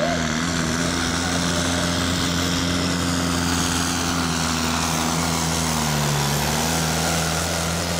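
Super Sport class pulling tractor's diesel engine running hard at steady high revs under full load while dragging a weight-transfer sledge; the pitch holds level, dipping slightly about six seconds in.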